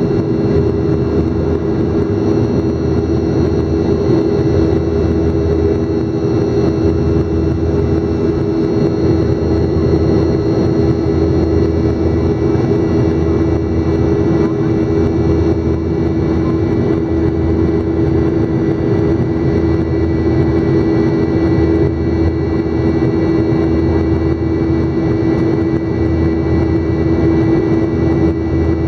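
Jet airliner engines heard from inside the passenger cabin during the climb after takeoff: a steady, loud drone with a strong low hum and a few faint high whines.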